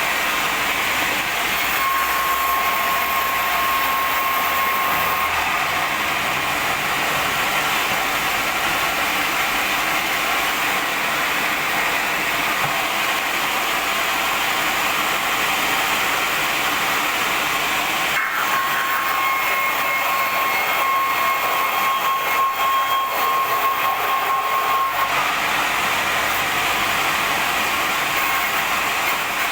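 Sawmill band saw running and cutting wide wooden boards: a loud, steady rushing noise, with a thin high whine that comes in about two seconds in and again for several seconds past the middle, where the sound changes briefly.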